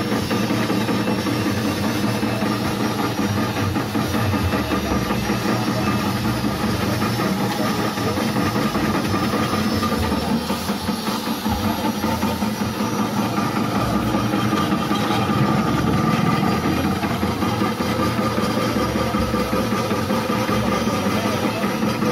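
Electric chip-slicing machine driven by a 180-watt motor, running steadily with a hum while produce is pushed through its blade and sliced into chips.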